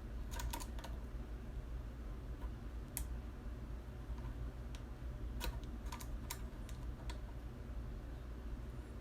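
Scattered light clicks and taps of metal tools being handled while a case trimmer's cutter gap is adjusted, a few at a time with pauses between, over a steady low hum.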